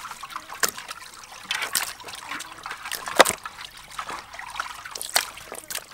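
Water trickling and dripping from freshly washed raw chicken drumsticks draining in a plastic basket, with a few sharper drips, the loudest about three seconds in.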